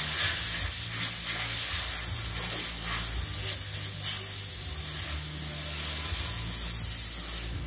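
Steady hiss of compressed air from an air tool, with a low steady hum underneath.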